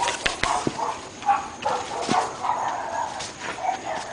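Dogs barking repeatedly: short barks in a quick, irregular run.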